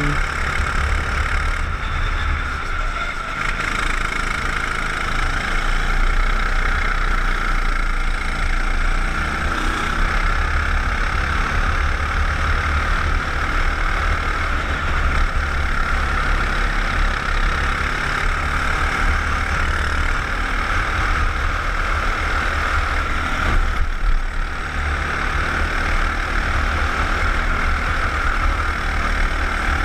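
Go-kart engine running steadily at racing speed, heard from a camera mounted on the kart, over a heavy low rumble.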